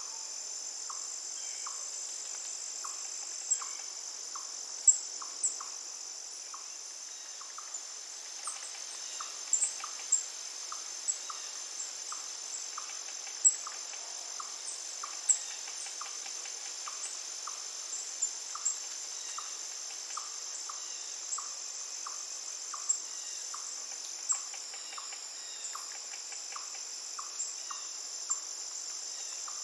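Crickets trilling in a steady high chorus, with a regular ticking call about one and a half times a second and scattered sharp chirps.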